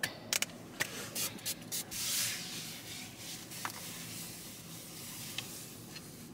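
Spray bottle of surface cleaner being handled and sprayed in a car interior, with surfaces being rubbed. Several short clicks and spritzes come in the first two seconds, then a longer spray hiss about two seconds in, then quieter rubbing.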